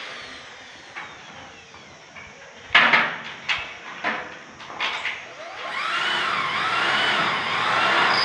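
A few sharp knocks on steel, then a handheld power tool starts up and works against the steel roof framework, its whine rising and wavering in pitch.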